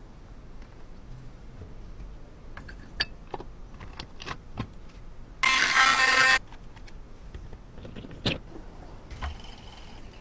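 Scattered light clicks and knocks of metal objects being handled, with a loud burst of hissing noise about five and a half seconds in that lasts about a second.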